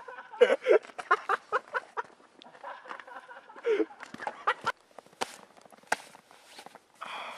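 People laughing in short, quickly repeating bursts, followed by a few sharp knocks about five to six seconds in.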